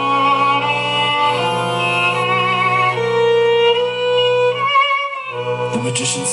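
Live band playing an instrumental passage: a violin carries the melody with vibrato over a held low note. The music drops away briefly about five seconds in, and a short noisy burst follows near the end.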